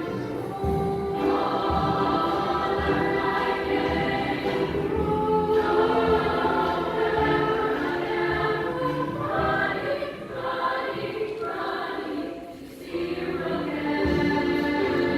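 Junior high choir singing in several parts, in phrases of held chords with a brief break about three-quarters of the way through.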